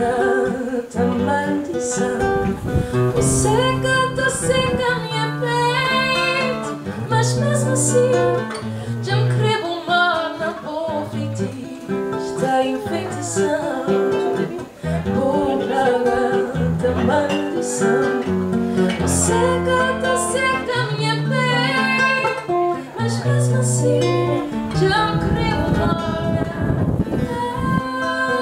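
Background music: a song with acoustic guitar and a singing voice over a walking bass line.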